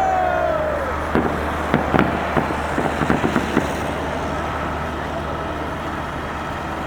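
Fireworks salute: a falling whistle dies away in the first second, then a quick run of crackling pops lasts about two and a half seconds, over a steady low background rumble.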